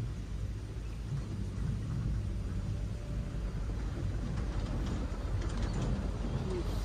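Steady low outdoor rumble at the water's edge, with a few faint clicks near the end as the small pen fishing rod is lifted to strike.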